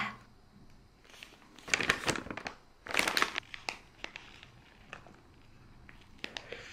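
Paper food wrapper crinkling as it is handled around a sandwich being eaten, in two short bursts near the middle.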